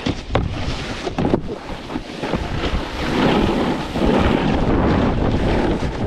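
Wind buffeting the microphone over a snowboard sliding and scraping across hard, icy snow, with a few sharp knocks in the first second and a half. The scraping grows louder about three seconds in and stays up.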